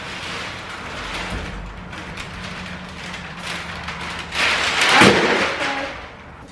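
Rustling and scraping as storage things are shuffled and dragged about in an attic overhead, with a louder rumbling scrape from about four and a half seconds in that eases off near the end.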